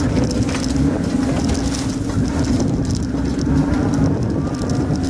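Open safari vehicle's engine running hard at a steady pitch as it reverses off-road, with rattles and knocks from the vehicle over rough ground.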